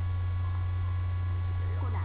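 Steady low electrical hum at an even level, with faint thin whining tones above it.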